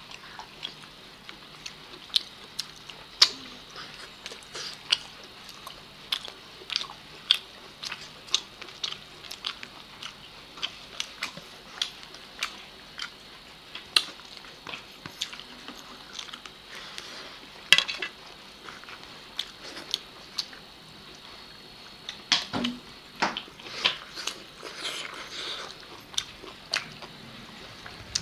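Two people eating chicken leg pieces and rice by hand: close chewing and biting with irregular sharp wet clicks and smacks from their mouths, coming thicker for a few seconds near the end.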